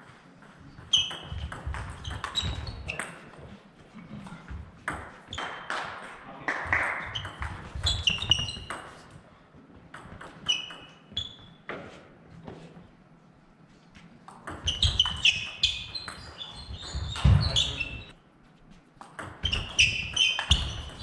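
Table tennis ball clicking sharply back and forth off bats and table in fast doubles rallies, in bursts with short quiet gaps between points.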